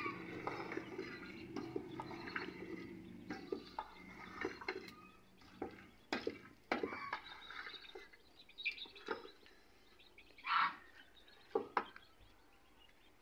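Wooden spoon stirring potatoes and cauliflower in a steel cooking pot, with scattered sharp knocks of the spoon against the pot.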